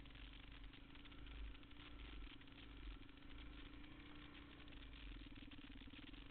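Faint, steady running of a single-cylinder dual-sport motorcycle engine at low road speed, its note wavering slightly with the throttle, with a light rattle.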